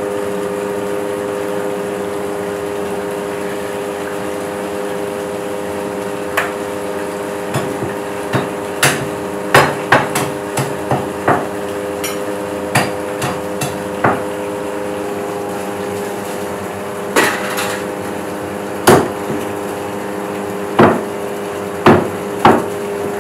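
Irregular sharp metallic knocks and clangs of a metal ladle striking large cooking pots, starting about six seconds in and growing louder near the end. Under them runs a steady mechanical hum.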